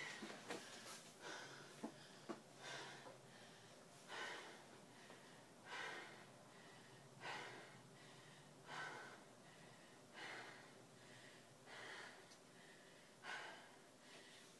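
Heavy, regular breathing, about one breath every second and a half.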